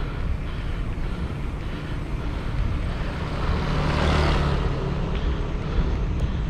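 Steady low rumble of wind and road noise from riding. A motor vehicle passes close by, swelling and fading about four seconds in.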